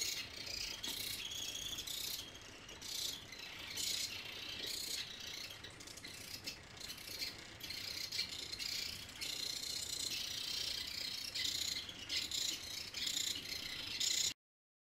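Small geared DC motors of a line-following robot driving, a high buzzing rattle that swells and drops every second or so. It cuts off suddenly near the end.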